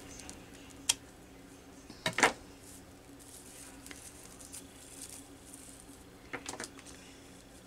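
Quiet handling of the dry bristles of a miniature broom as they are trimmed and pulled off: a sharp click about a second in, a louder double click about two seconds in, and a few faint clicks near the end, over a low room hum.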